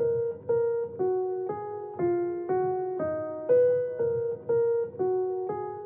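Background music: an electric piano playing a steady run of single notes, about two a second, each note fading before the next.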